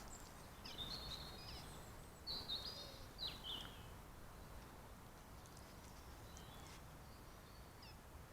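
Faint bird chirps and short warbling phrases over steady outdoor background noise, a few clear phrases in the first few seconds and weaker ones later on.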